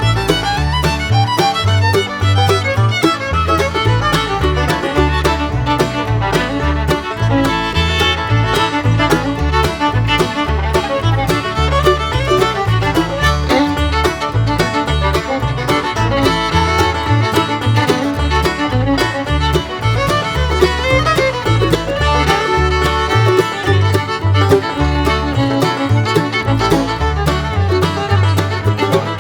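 Background music: an upbeat instrumental with a steady, rhythmic bass line.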